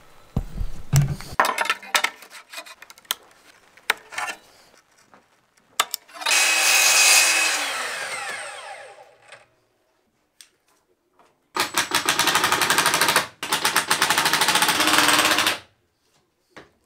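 A few knocks and clicks of handling wood, then a sliding mitre saw cutting a plank, its blade winding down with falling pitch over about three seconds. Near the end a cordless drill drives screws in two runs of about two seconds each, with a brief pause between them.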